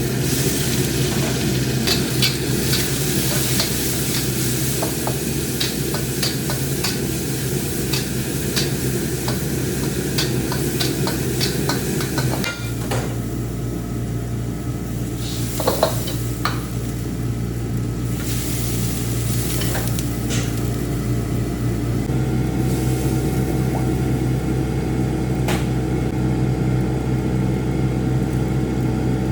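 Flat noodles being stir-fried in a wok: a spatula scrapes and clicks against the pan over steady sizzling and a constant low burner hum. The clicks are thickest in the first dozen seconds, with a few sharper knocks later on.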